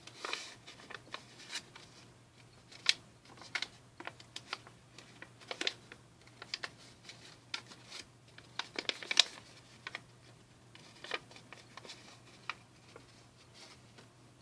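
A sheet of origami paper being folded and pulled open by hand into a canoe shape: irregular crisp rustles and crinkles with scattered sharp paper crackles, the loudest about 3 and 9 seconds in, dying down near the end.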